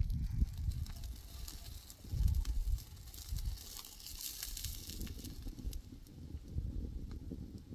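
Chicken wings and tomatoes on skewers over charcoal embers, sizzling with a faint hiss and fine crackling from the coals, over a low uneven rumble that swells briefly about two seconds in.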